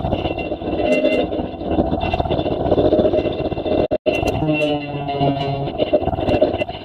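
Distorted music with a guitar-like sound. It cuts out completely for a moment about four seconds in, then comes back with held, steady notes.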